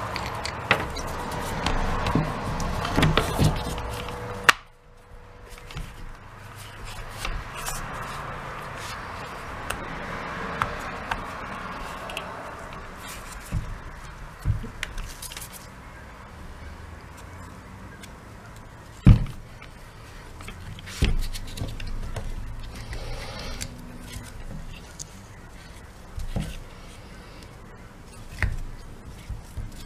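Scattered plastic clicks and knocks as the clamshell halves of a Milwaukee angle grinder's plastic handle housing are handled and pressed back together over the wiring, with a few sharper knocks, the loudest a little past the middle.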